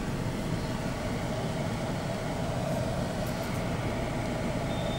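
Steady city traffic noise, vehicle engines running, heard from inside a moving car through its closed windows.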